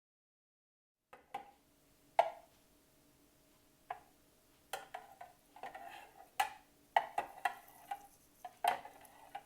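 A spoon stirring honey into thyme water, knocking irregularly against the side of the container, with a short ring after the louder knocks. It starts about a second in.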